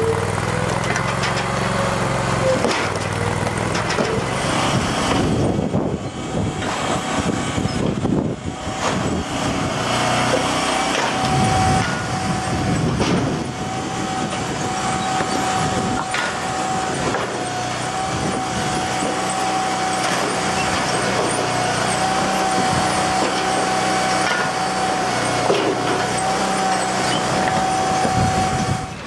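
Engine-driven Powersplit vertical wood splitter and its conveyor running steadily, with a steady whine from about ten seconds in and a few knocks of wood.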